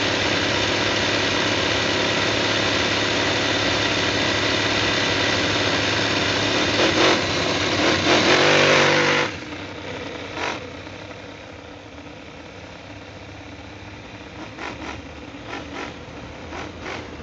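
Conley Clone V8 model engine in a quarter-scale Corvette, its carburettor set very rich, running at a steady idle, then revved up about seven seconds in as the car pulls away. The sound drops off sharply about nine seconds in, and the engine is then heard faint and distant, with a few short revs near the end.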